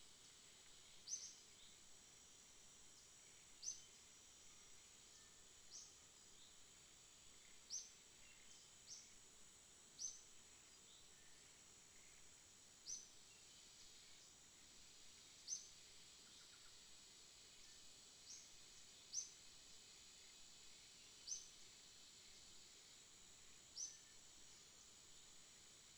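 Faint short high chirps, about a dozen, repeating every two to three seconds, over a steady thin high-pitched whine.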